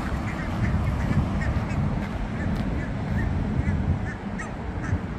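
Waterfowl calling in short, repeated notes, several a second, over a steady low rumble of wind on the microphone.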